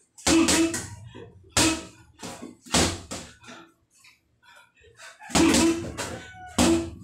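Boxing gloves smacking a hanging heavy bag in short combinations of two or three sharp blows. There is a lull in the middle, then a quick flurry near the end.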